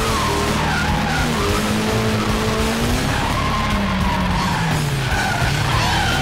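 Drift car engine heard from inside the cabin, its pitch rising and falling with the throttle, while the tyres skid through the slide.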